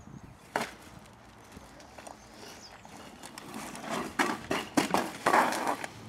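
A single sharp knock, then footsteps on concrete steps and a plastic garbage bag rustling as it is lifted and carried, with a cluster of louder knocks and rustles in the last couple of seconds.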